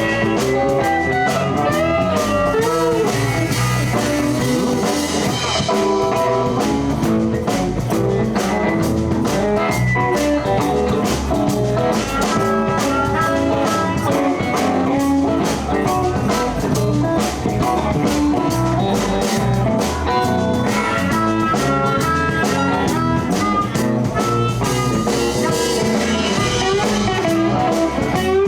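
Live blues band playing an instrumental passage: electric guitar lines over bass and a steady drum-kit beat.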